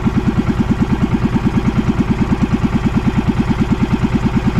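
A small motorized outrigger boat's engine running steadily with a rapid, even beat.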